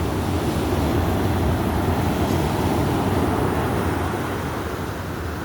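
Stormy sea: waves and wind buffeting the microphone, a steady low rumble of noise.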